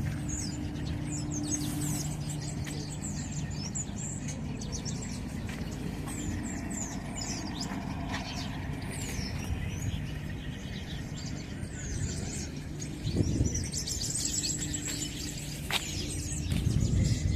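Small birds chirping and tweeting repeatedly over a steady low hum.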